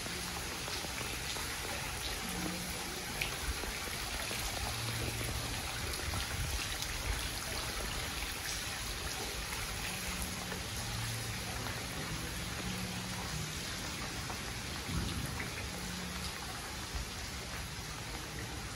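Steady rain falling, an even constant hiss.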